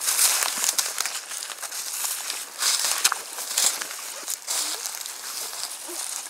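Irregular rustling and crackling of dry grass and brush as someone walks through it, coming in uneven bursts.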